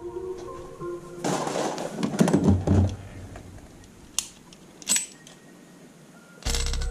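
Plastic toy guns being handled: a run of rattling, clattering plastic, then two sharp single clicks a little under a second apart.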